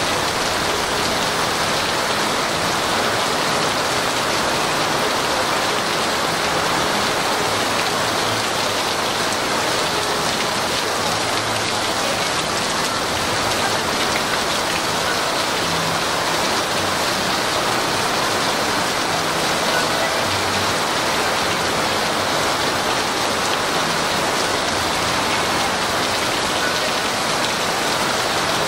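Torrential downpour: heavy rain falling in a steady, unbroken hiss.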